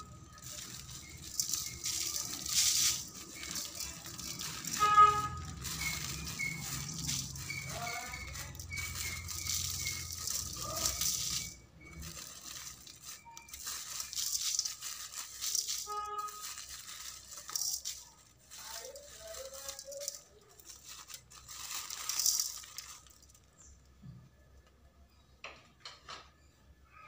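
Background music with shaker-like rattles in swells and a few short pitched notes.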